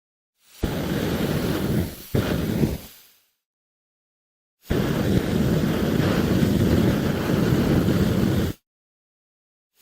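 Flamethrower firing in blasts: a short blast about half a second in that dies away, a second brief blast right after it that fades out, then a steady blast of about four seconds that cuts off suddenly.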